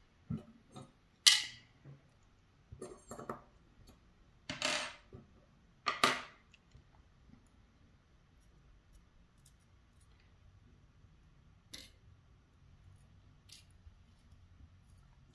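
Small metal driver pins and springs from a Schlage Primus lock cylinder dropping out and clinking onto a hard surface. It is a run of sharp clicks and clinks, the loudest about a second in and another at about six seconds, then only a couple of faint ticks.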